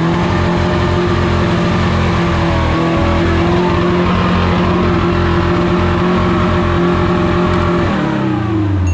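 Off-road 4x4's engine held at high, steady revs under load, then the revs fall away near the end.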